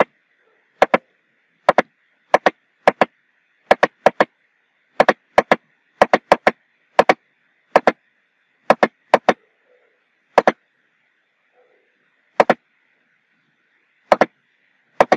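Computer mouse button clicking, each click a quick press-and-release pair, repeated at an irregular pace about every half second to a second with one longer pause in the middle.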